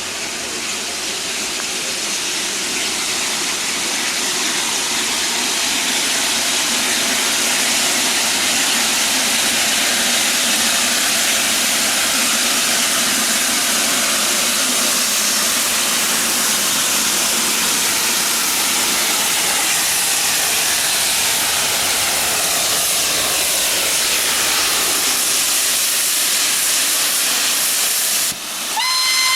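Steam locomotive venting steam in a loud, steady hiss that builds over the first few seconds and then holds. A steam whistle starts right at the end.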